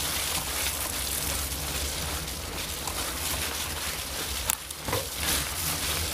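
Steady rushing wind on the ride camera's microphone, with deep buffeting rumble, mixed with tyres rolling over a wet dirt forest trail. A couple of short knocks come about four and a half seconds in.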